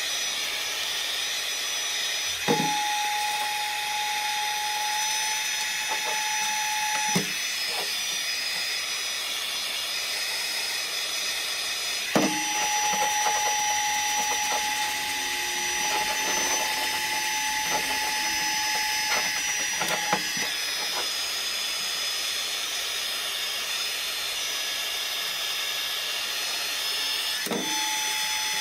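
Electric heat gun blowing hot air steadily, a fan hiss with a high whistle. Three times a steady mid-pitched tone comes in for several seconds, starting and stopping with a knock.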